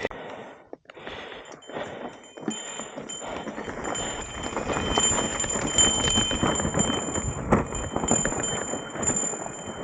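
Mountain bike riding down a rough, rocky dirt trail: tyres and frame rattling and knocking over rocks in a dense, irregular clatter. A thin high whine comes and goes from about a second and a half in.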